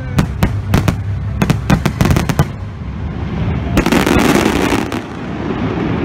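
Aerial fireworks going off: a rapid string of sharp bangs over the first two and a half seconds, then a dense burst of crackling about four seconds in as glittering crackle shells open.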